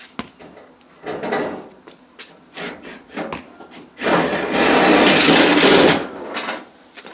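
Hand-tool work on car-body sheet metal: scattered clicks and knocks, then a harsh scraping or rasping noise lasting about two seconds, the loudest sound, from about four seconds in.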